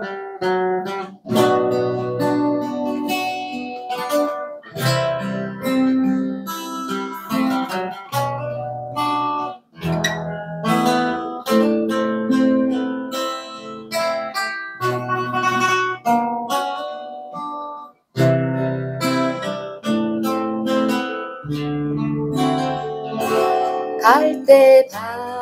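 Acoustic guitar playing a slow instrumental intro: a plucked melody over low bass notes, in phrases with short breaks between them.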